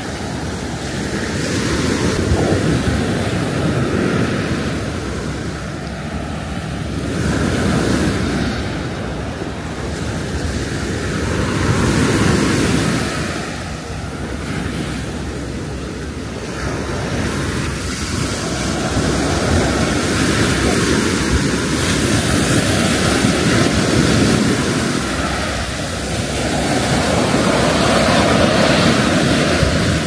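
Sea surf breaking and washing up the beach, swelling and easing every few seconds as each wave comes in.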